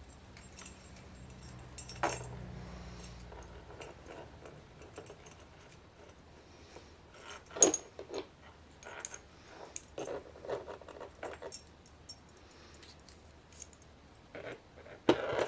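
Scattered small metallic clicks and clinks from a disassembled American 5200 padlock and its key being handled, with one sharper click about seven and a half seconds in.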